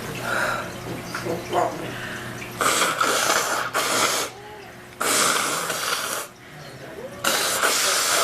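A person with a cold blowing her nose hard three times, each blow a long rush of air lasting over a second.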